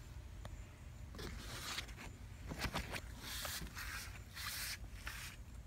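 Tomato leaves and stems rustling and scraping close to the microphone in several short scratchy bursts, with a few light clicks.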